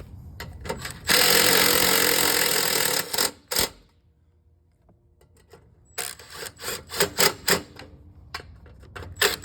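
A power tool, likely the impact gun used to run the nuts on, runs for about two seconds about a second in. Two sharp knocks follow, then after a short quiet gap a run of quick clicks and taps from hand work on the parts.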